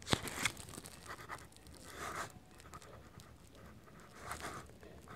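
A pen scratching faintly across paper in several short strokes while a cursive signature is written by hand, with a sharp tick right at the start.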